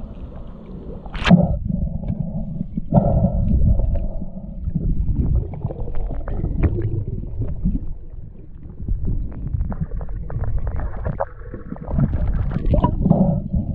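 Water heard from under the surface: a muffled, low rumbling wash with gurgling and small scattered clicks. A brief splash comes about a second in as the camera goes under.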